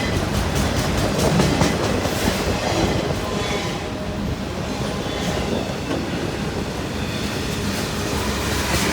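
Long CN freight train's cars rolling past: a steady rumble of steel wheels on rail, with a repeated clickety-clack as the wheels cross the rail joints.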